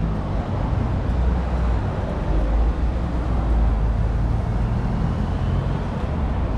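Road traffic on a city street: a steady low rumble of passing cars and buses, heaviest a second or so in.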